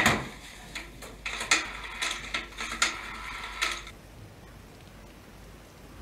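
Rotary telephone being dialled: the dial is turned and runs back with small ratcheting clicks, and there are a few sharper knocks from handling the phone. It stops about four seconds in.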